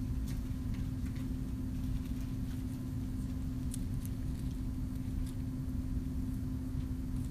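Steady low rumble with a constant low hum, the room's background noise, and a few faint light ticks scattered through it as Bible pages are turned at the pulpit.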